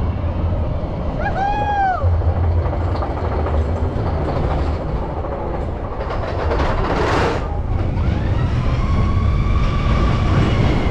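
Expedition Everest roller coaster train running along its track with a steady rumble from its wheels. A brief high tone rises and falls about a second and a half in, a short rush of noise comes about seven seconds in, and a long steady higher tone sets in near the end.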